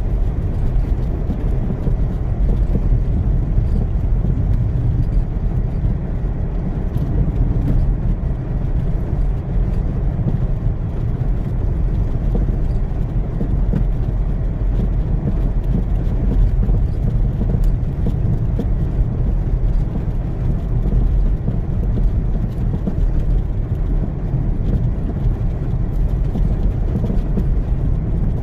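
A car driving on a snow-covered road in strong wind, heard from inside the car: a steady low rumble of tyres, engine and wind.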